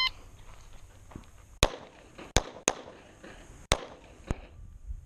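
Backup pistol firing five shots, unevenly spaced: the first about a second and a half in, two quick shots close together, then two more about a second apart. The last shot is fainter.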